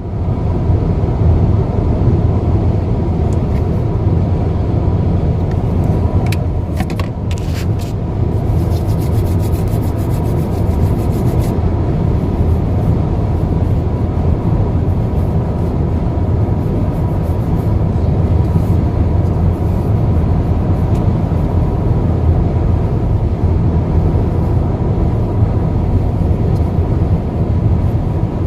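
Steady road and engine noise inside a moving car's cabin, a low rumble, with a few brief clicks about six to eight seconds in.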